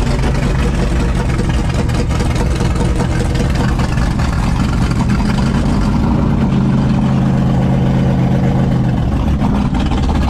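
Big-block V8 engine of a GMC tow truck running at low speed as the truck rolls slowly in gear, heard from inside the cab. The engine note stays steady, shifting slightly near the end.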